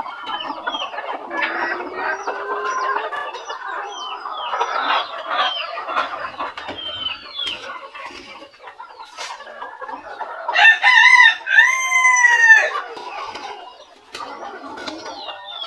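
Flock of Cochin and Frizzle bantam chickens clucking and chattering, with a rooster crowing loudly about ten seconds in.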